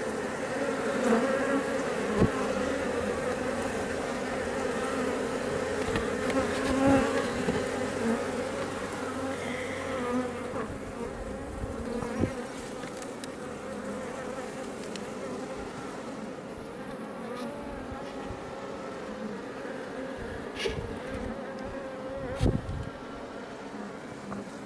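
A colony of Iberian honey bees buzzing at a Langstroth hive: many wingbeats blending into one steady hum, with single bees swelling louder as they fly close past now and then. The hum is fuller in the first half and a little softer later on.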